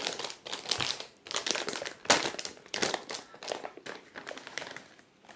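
Clear plastic bag crinkling as it is pulled open and slid off an audio interface, in irregular crackles, loudest at the start and about two seconds in, dying down near the end.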